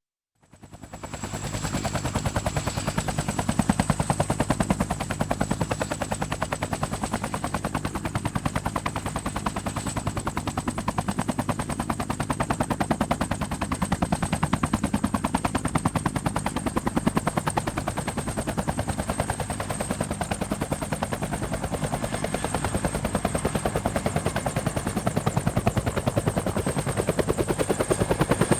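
Helicopter running steadily, its rotor blades beating in a fast, even chop under a thin high turbine whine; the sound fades in over the first second or two.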